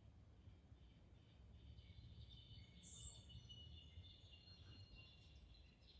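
Faint, distant birdsong in an evening forest: thin high calls drawn out over several seconds, with one short higher chirp about halfway through, over a low steady background rumble.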